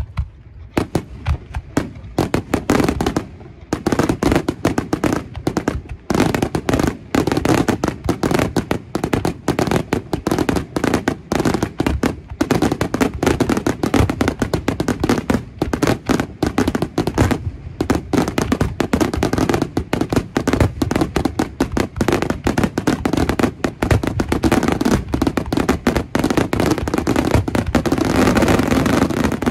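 Aerial fireworks display: a rapid, continuous barrage of shell bursts and crackling, starting about a second in and growing denser toward the end.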